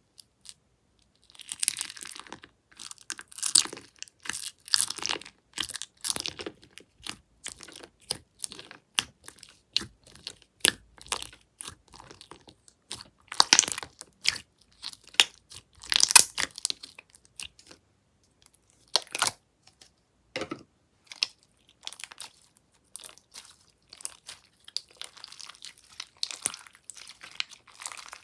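Slime being squished and stretched by hand, giving off irregular crunchy crackles and pops that start about a second in.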